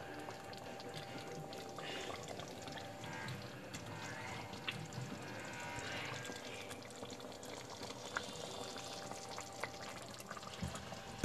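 Minced-beef sauce for millionbøf simmering in a pot, faint bubbling, with a wooden spoon stirring through it and knocking lightly on the pot a few times.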